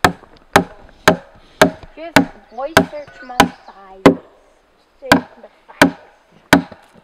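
A hatchet chopping into a peeled log to cut a notch: sharp blows about two a second, a pause of about a second after four seconds, then three more blows.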